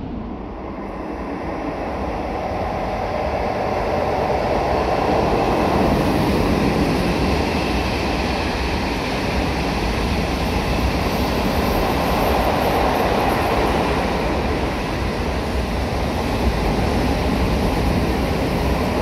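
Passenger train approaching out of a tunnel and running past the platform, a steady rushing rumble of wheels on rails. It grows louder over the first few seconds as the train nears, then holds steady while the cars go by.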